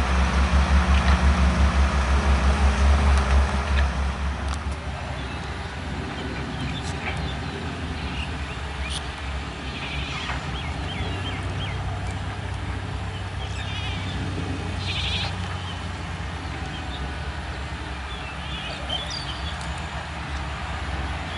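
Samsung HD 900 V-II hydraulic excavator's diesel engine running close by with a low, pulsing throb under load for about four seconds. It then gives way to a steadier, more distant hum of several excavators working, with scattered short high chirps of animal calls over it.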